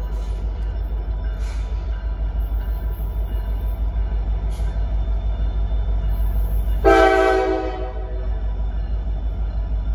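Norfolk Southern diesel locomotive approaching, its engine rumbling steadily, with one chord horn blast about seven seconds in that fades out over about a second.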